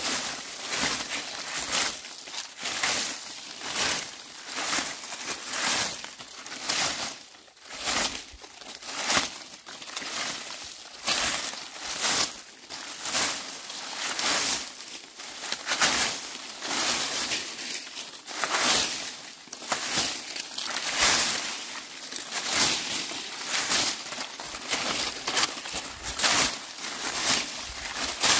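A broom sweeping dry leaves in repeated scratchy, rustling strokes, about one a second.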